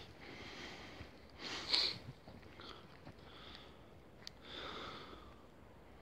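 A man's breathing through the nose while he bites into a sandwich: two short sniffing breaths, one about two seconds in and one near five seconds, with a faint click between them.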